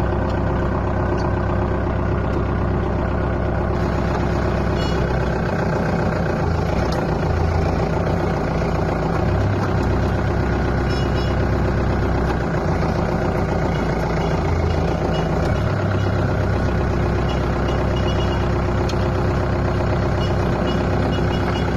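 Compact tractor engine running at a steady speed while the tractor is driven, heard up close from the driver's seat.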